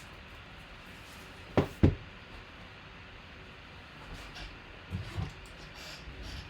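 Two sharp knocks in quick succession about a second and a half in, then two softer knocks around five seconds in and a few light clicks: objects being picked up and set down by hand.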